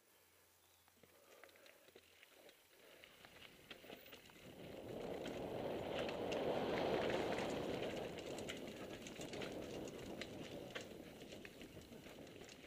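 Mountain bike descending a dirt trail at speed: tyre roar on the dirt, clattering and rattling of the bike over roots, and wind rush. It builds about three seconds in, is loudest around the middle, then eases off.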